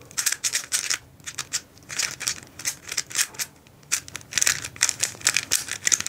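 Rapid plastic clicking and clacking of a stickerless 3x3 speedcube being turned fast during a timed solve, coming in quick irregular bursts of turns.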